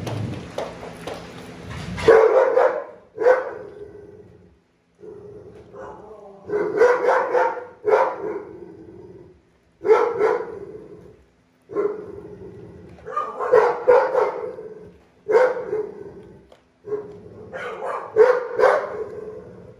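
Dog barking repeatedly, in short bouts of one or a few barks every second or two.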